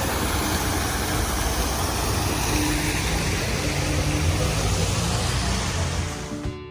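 Water from a decorative waterfall fountain falling into a shallow pool: a steady rushing splash, fading out near the end.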